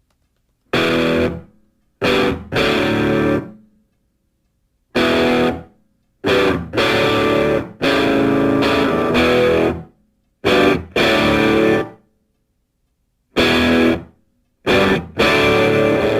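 Distorted electric guitar playing chords in short stop-start phrases, each cut off sharply into silence before the next begins.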